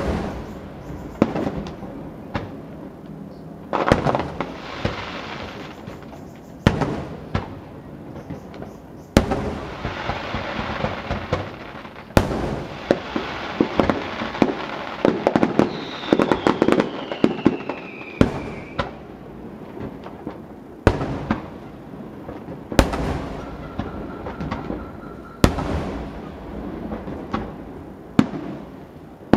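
Aerial fireworks display: a dozen or so sharp booms of shells bursting every few seconds, with a dense stretch of crackling in the middle and a falling whistle about two-thirds of the way through.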